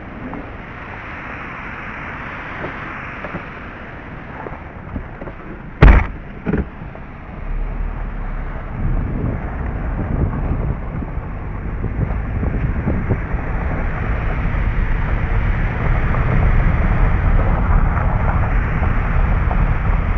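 Gravel crunching underfoot, then a car door slams shut about six seconds in, with a smaller knock just after. The Mazda sedan's engine starts a second or so later and runs, growing louder as the car drives off.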